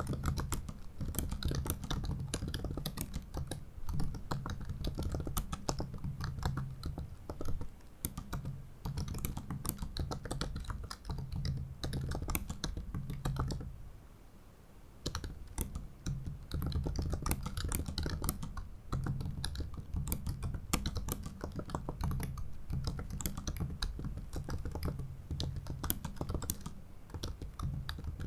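Typing on a 2017 MacBook Pro 15-inch's built-in butterfly keyboard: a fast, irregular run of short key clicks, with a break of about a second halfway through.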